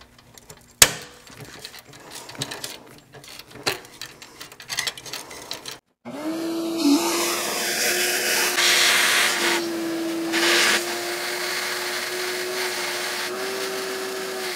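Scattered clicks and taps of a hand tool working on metal. Then, about six seconds in, a shop vacuum starts and runs with a steady whine and hiss, sucking coolant out of the truck's cooling system. Its hiss swells a couple of times along the way.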